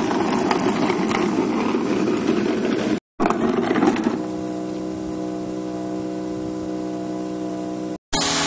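Plastic wheeled trash bin rolled over a concrete sidewalk, a rough rumble with occasional clacks. After a cut, a steady machine hum takes over about four seconds in.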